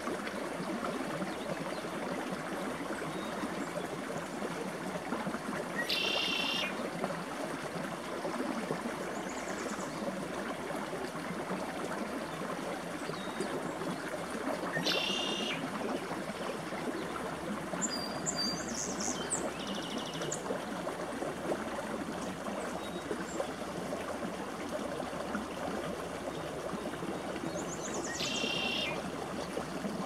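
Creek water running steadily. A songbird gives a short, high, buzzy trill three times, roughly ten seconds apart, with a few fainter high notes between.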